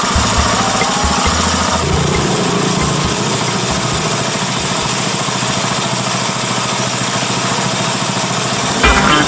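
998 cc Daihatsu car engine fitted in a custom motorcycle, running steadily at idle with a fast, even firing pulse. A bass-heavy music beat sounds over it for the first two seconds, and music returns just before the end.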